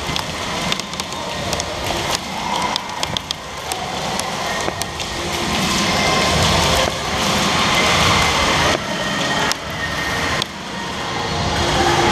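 Airsoft gunfire in a concrete indoor arena: scattered sharp snaps and clicks, thickest in the first few seconds and sparser later, over a steady echoing din.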